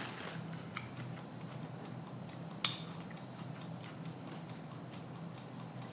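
Faint mouth sounds of someone chewing food, with a few soft clicks, the sharpest about two and a half seconds in, over a steady low hum.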